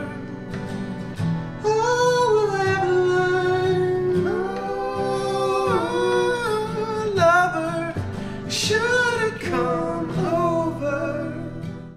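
A singer holding long notes with vibrato over strummed guitar and steady chords; the music cuts off at the very end.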